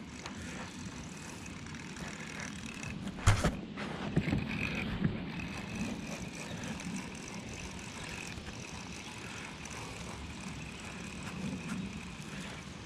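Steady low rumble and hiss of wind and water around the kayak, with one sharp knock about three seconds in and a few softer knocks just after, as the angler's hand and gear bump near the camera.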